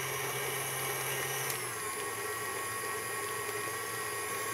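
KitchenAid stand mixer running steadily, its paddle attachment beating a cream cheese and white chocolate filling. The motor's pitch drops slightly about a second and a half in.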